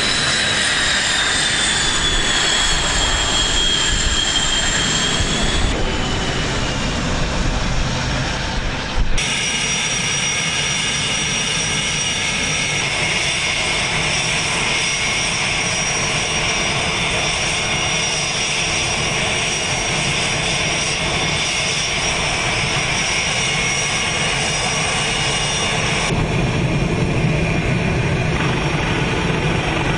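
F/A-18 Hornet's twin F404 turbofans running with a jet whine that falls in pitch over the first few seconds as the engines spool down after an arrested landing. About nine seconds in the sound changes abruptly to a steady idling whine with several held tones, which shifts again near the end.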